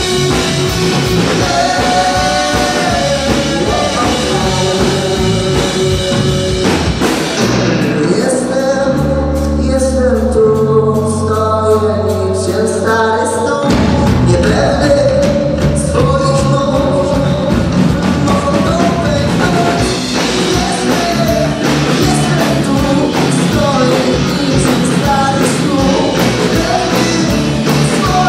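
Rock band playing live: electric guitars, bass guitar and drum kit with a sung lead vocal. About seven seconds in, the drums and high end drop out, leaving low held notes under the voice, and the full band crashes back in about fourteen seconds in.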